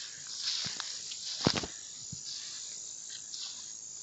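Night insect chorus of crickets chirring steadily, with a few short knocks, the loudest about a second and a half in.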